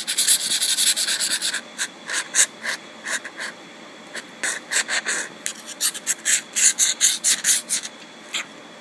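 Quick rubbing or scratching strokes, a fast steady run for about the first second and a half, then separate strokes coming irregularly with short pauses.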